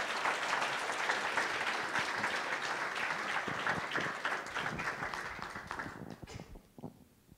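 Audience applauding, thinning out about five seconds in and dying away a second or so later, with a few last stray claps.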